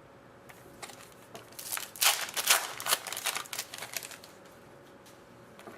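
Hockey trading cards being handled: a couple of seconds of rustling, sliding and flicking of cards and packaging, densest in the middle, with quieter single flicks before and after.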